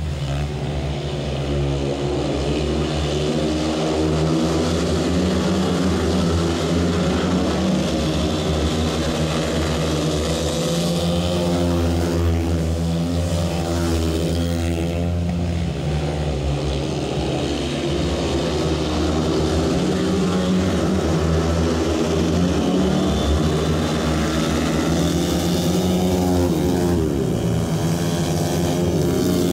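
Several speedway bikes' 500cc single-cylinder methanol engines racing together around the track, their pitch rising and falling as the riders come off and back on the throttle through the bends.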